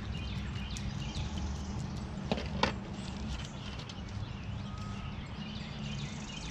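Tilapia being cleaned by hand with a knife on a plastic folding table: a run of quick scraping clicks, with two sharp knocks about two and a half seconds in, over a steady low rumble.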